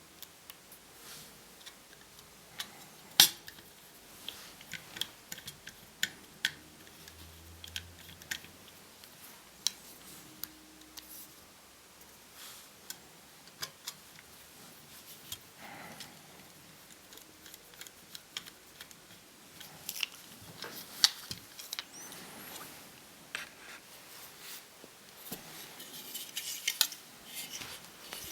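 Scattered light clicks and metallic taps from small tools and laptop parts being handled during disassembly, with one louder click about three seconds in and another about twenty-one seconds in, and a brief stretch of scraping and rustling near the end.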